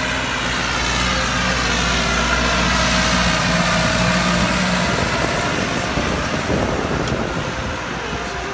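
Tractor diesel engine running under load while pulling a disc tiller through the soil. It is a steady hum for the first half, then gives way to a rougher, noisier rumble from about halfway through.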